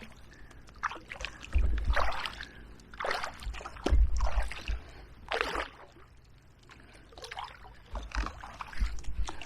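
Kayak paddle strokes splashing through fast, shallow river water against the current, irregular splashes roughly one a second with some dull low rumbles under them.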